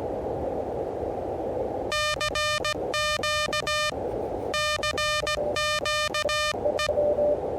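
Elecraft KH1 transceiver's CW sidetone as Morse code is keyed in two runs of dots and dashes, the receiver's band hiss dropping out while it sends. Band hiss before and between, with a weaker Morse signal coming through near the end.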